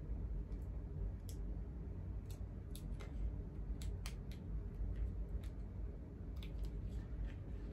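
Hands folding and creasing a thin packaging sheet: about ten scattered soft crinkles and clicks over a low steady hum.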